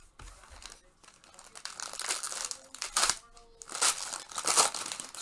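Plastic card packaging crinkling and tearing in bursts, loudest near the end, as trading-card wrappers and sleeves are handled and opened.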